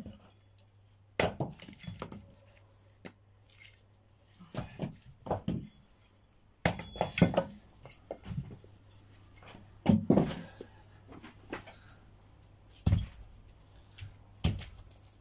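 Pieces of firewood knocking and clattering against each other in irregular bursts, several sharp wooden knocks spread a few seconds apart, over a faint steady low hum.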